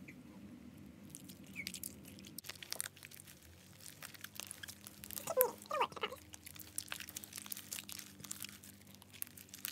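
Freshly borax-activated school-glue slime being kneaded by hand in a ceramic bowl: irregular sticky clicks and crackles, growing busier after a couple of seconds. Two short squeaks come about halfway through.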